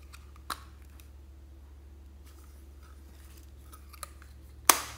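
A plastic Pikachu-shaped container being handled and opened, giving a sharp click about half a second in, a smaller one near four seconds, and a louder plastic clack near the end, with faint handling rustles between.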